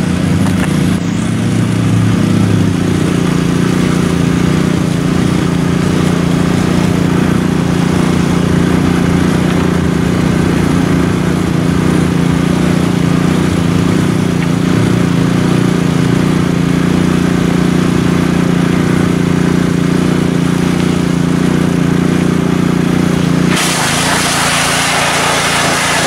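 Pressure washer's small engine running steadily at a constant speed. About three-quarters of the way through the pitch shifts suddenly and a hiss joins in.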